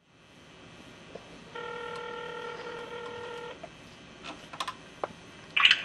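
Telephone ringback tone heard through a flip phone's speakerphone: one steady ring of about two seconds, the outgoing call not yet answered. A few faint clicks follow, and a voice starts right at the end.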